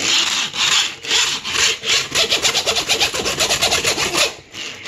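Rasping back-and-forth rubbing or scraping close to the microphone, about two strokes a second, stopping shortly before the end.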